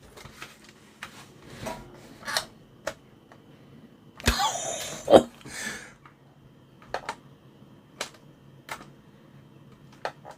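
Small hard objects being handled: scattered clicks and knocks, with a brief burst of rattling and shuffling about four seconds in that ends in a sharper knock.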